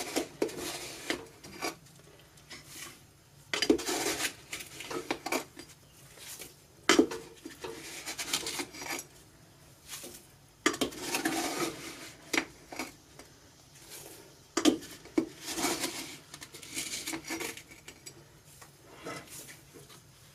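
Sugar being scooped and poured by the cupful into a stainless steel stockpot, with repeated clinks and scrapes of the cup every few seconds.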